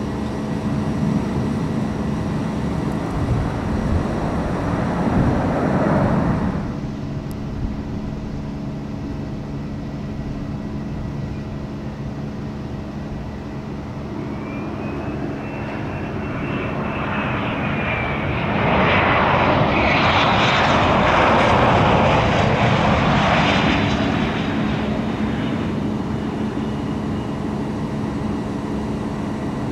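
Business-jet turbofan engines. For the first six seconds or so a jet is heard, then it cuts off abruptly. After that a Cessna Citation Latitude's twin turbofans are heard landing: a thin whine that rises then falls in pitch, then the loudest engine noise a little past the middle as the jet passes on the runway, fading toward the end.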